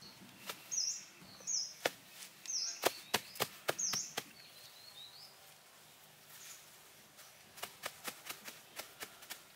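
Sharp irregular clicks and taps of hands placing and pressing clumps of grass turf onto the soil, in a run during the first half and again near the end. A bird chirps a few short high notes in the first few seconds.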